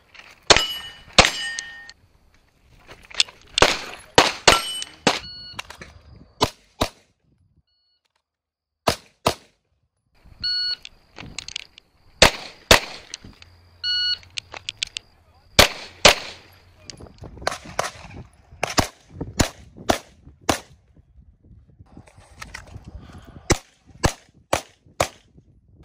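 Pistol shots fired in several quick strings, with steel plate targets ringing briefly after some of the hits.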